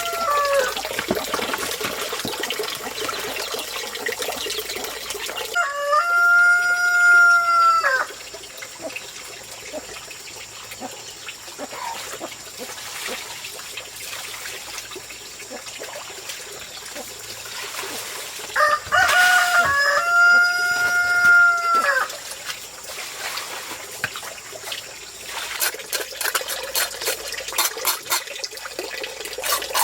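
Rooster crowing twice, each crow one long drawn-out call, over a steady trickle of water. A run of short sharp ticks comes near the end.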